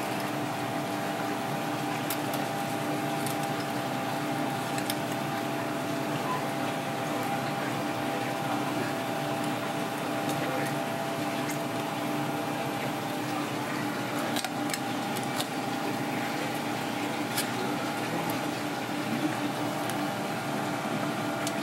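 Steady kitchen background hum and hiss, with a few light clicks and scrapes of a kitchen knife against the fish and plastic cutting board as the fish is cut up.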